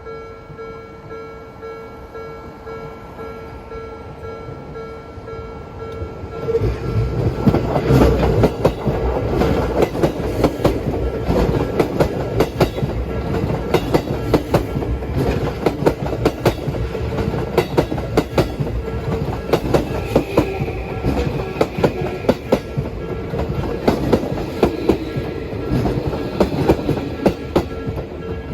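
Japanese level-crossing alarm ringing with a steady pulsing tone. About six seconds in, an Odakyu Line electric train starts passing through the crossing, its wheels clattering rhythmically over the rail joints for the rest of the time.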